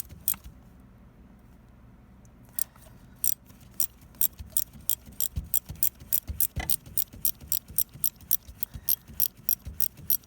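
Ratchet wrench clicking in a steady run of sharp clicks, about four a second, pausing for about two seconds near the start, as a broken exhaust manifold bolt is worked out of the cylinder head.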